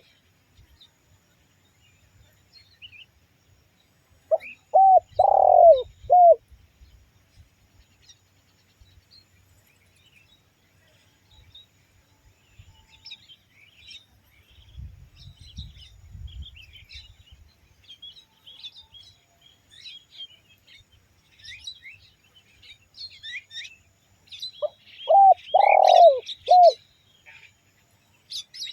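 Spotted dove cooing: two calls of four arching notes each, a short pair, a long note and a short closing note, one about four seconds in and one near the end. Faint high chirps of small birds run in between.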